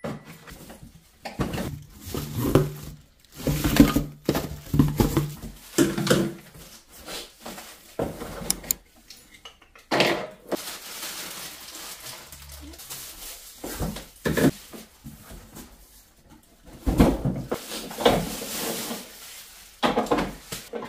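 Unboxing sounds of a canister vacuum cleaner: cardboard flaps and packing rustling, plastic wrapping crinkling, and the vacuum's hard plastic parts knocking and clattering as they are handled, in irregular bursts.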